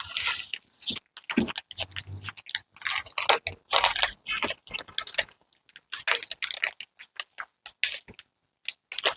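Paper leaflets and packaging rustling and crinkling as they are handled while a box is unpacked, in irregular bursts with short pauses.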